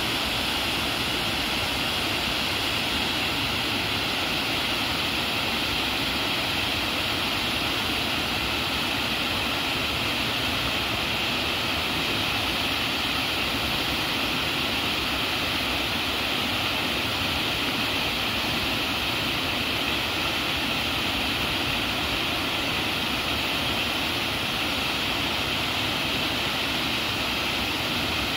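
Steady rushing of a small waterfall, stream water pouring over a ledge and splashing onto rocks below, even and unbroken throughout.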